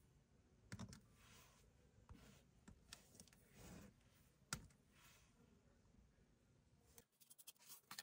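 Faint clicks and taps of glass nail-liquid bottles and plastic dip powder jars being handled and set down on a tabletop, a few single knocks spread apart with soft rubbing between. Near the end comes a quick run of small clicks as a jar's lid is twisted off.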